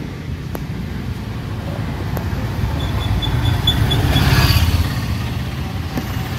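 Auto-rickshaw's single-cylinder engine running, heard from inside the cabin, getting louder about four seconds in.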